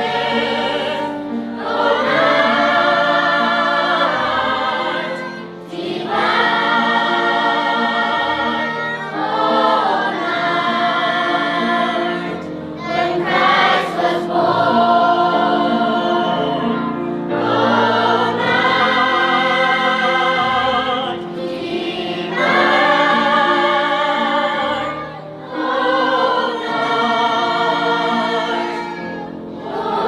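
Mixed children's and youth choir singing in parts, in phrases a few seconds long with brief pauses for breath between them.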